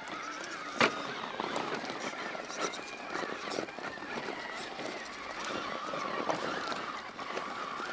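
Element RC Enduro scale crawler's electric motor and gears whining at crawl speed, with the tires clattering over loose rocks and a sharp knock just under a second in.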